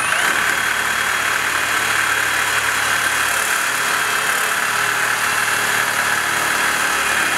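Milwaukee Sawzall reciprocating saw with a fine-toothed metal-cutting blade cutting through PVC drain pipe. Its motor whine climbs just at the start as it speeds up, then it runs steadily through the cut.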